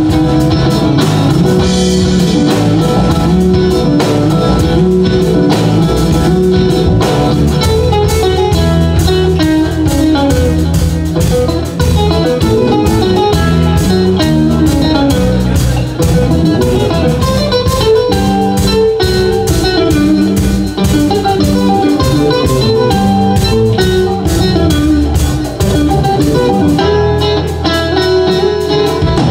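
A live jazz-rock fusion trio playing loud: electric guitar lead over electric bass and a drum kit.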